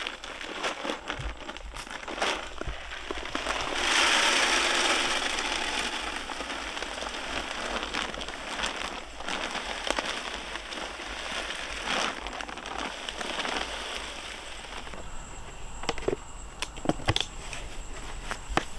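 Feed pellets poured from a plastic feed bag into a tree-mounted protein feeder: a dense pattering rattle of pellets pouring in, loudest about four seconds in, with crinkling of the bag and scattered clicks as pellets strike and settle.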